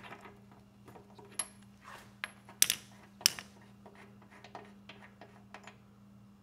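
A wrench clicking and clinking on a lawn mower engine's spark plug as the plug is loosened and unscrewed, a few sharp metallic clinks with a brief ring, then smaller ticks. A faint steady hum runs underneath.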